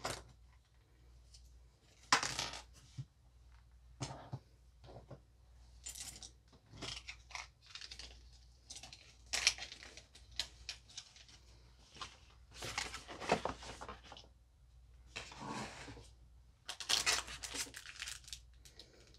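Diamond painting kit contents being handled: irregular crinkling and rustling of a plastic-wrapped bundle of drill bags, mixed with light clicks and taps of small plastic tools.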